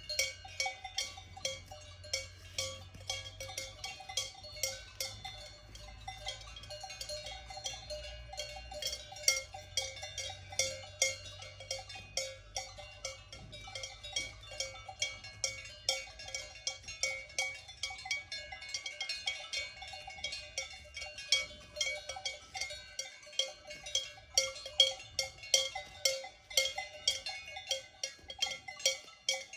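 Cowbells worn by grazing cows, clanking irregularly several times a second as the animals move. Several bells of different pitches overlap.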